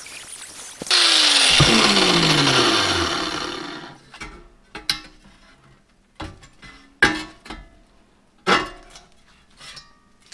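Angle grinder cutting sheet steel: a loud burst of cutting noise about a second in, then the motor winding down with a falling pitch over two to three seconds. After it come several sharp metallic clanks and knocks as the cut steel pieces are handled.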